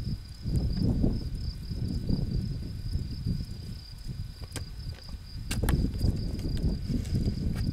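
An insect trills steadily at a high pitch over a louder low rumble that swells and fades, with a few sharp clicks about halfway through and near the end.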